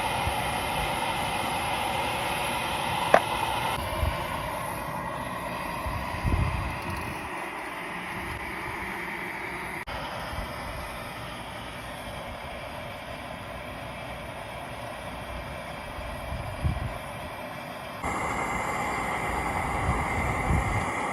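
Takei 301 kerosene pressure burner running with a steady rushing roar, with a few low thumps and a sharp click.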